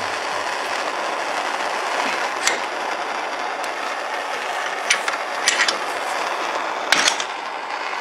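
Handheld gas torch hissing steadily as its blue flame heats a steel clutch pedal clamped in a vise, softening the bend so it can be straightened. Four sharp clicks cut through the hiss, the loudest about seven seconds in.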